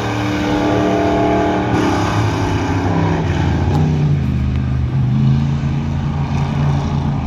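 Dirt-track race car engine running at speed around a dirt oval. Its note drops about three seconds in and then holds lower and steady.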